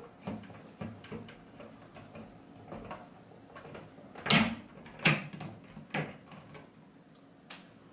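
Plastic housing of a Ubiquiti UniFi AC access point being handled and pressed onto its ceiling mounting plate. Soft rubbing and small clicks are followed a little past halfway by three sharp clicks about a second apart, the first the loudest.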